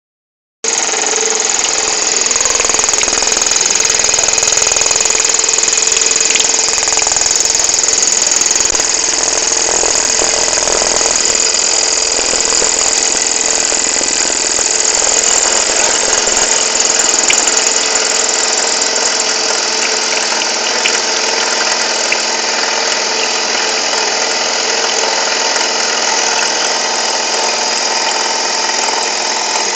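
CNC machine cutting a 1/4-inch hexagon in stainless steel, a steady loud machining noise with a high-pitched whine. It starts abruptly, and the whine eases about two-thirds of the way through.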